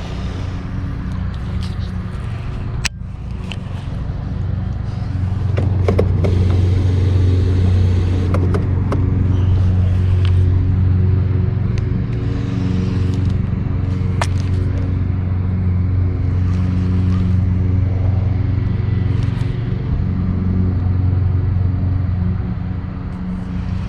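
A small boat motor running with a steady low hum, getting louder about five seconds in, with a few sharp clicks on top.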